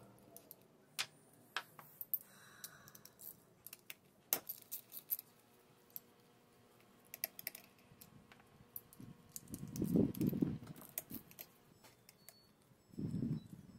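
Scattered small metallic clicks and clinks of a hand nut driver working the bolts on the water-pump housing of an outboard lower unit, with two duller, longer scuffing sounds about two-thirds of the way in and near the end.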